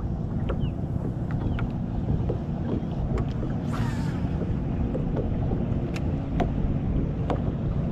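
Wind noise on the microphone over a steady low rumble on a fishing boat, with scattered light ticks and a brief hiss about four seconds in.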